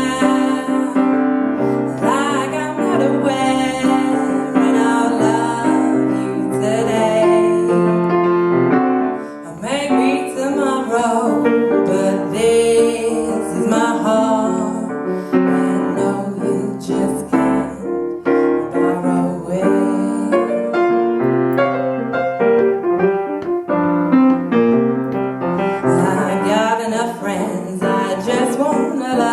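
Instrumental music led by piano, with many held notes and chords and a short dip in loudness about nine seconds in.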